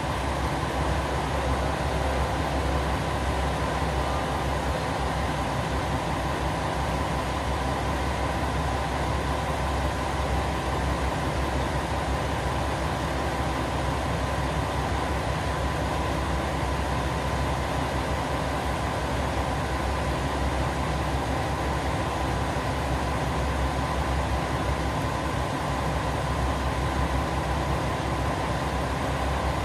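KiHa 47 diesel railcar's engine idling steadily while the railcar stands still.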